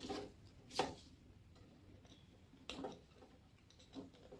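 Wire spade connectors being pushed onto a capacitor's terminals: four short, faint clicks and taps spread over a few seconds.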